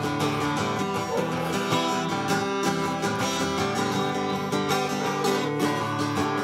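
Acoustic guitar strummed in a steady rhythm: an instrumental passage of a song, without voice.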